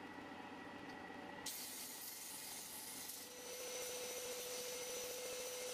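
Disc sander running while a small plywood piece is pressed against its sanding disc. A steady hiss of sanding starts suddenly about a second and a half in, and a steady tone joins about halfway through.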